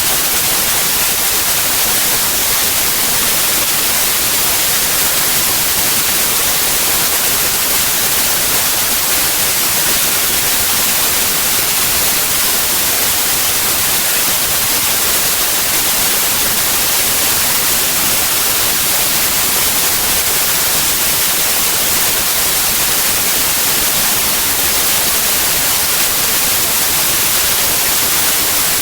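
Steady, loud white noise: an even, unchanging hiss with no tones or breaks, bright and hissy in the treble.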